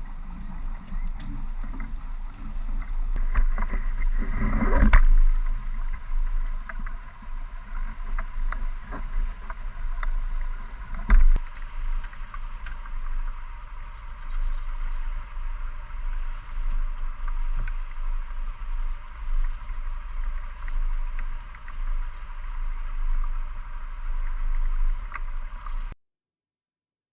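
Water rushing along a sailing yacht's hull with wind buffeting the microphone as the boat sails. There is a louder surge about five seconds in and a sharp knock about eleven seconds in, and the sound cuts off near the end.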